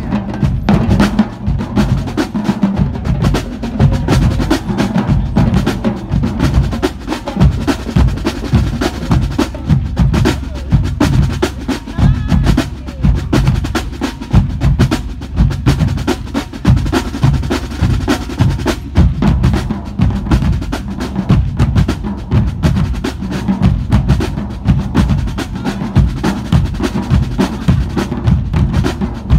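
Marching drumline of snare drums and bass drums playing a cadence together: dense, continuous snare strokes over heavy bass-drum hits, loud throughout.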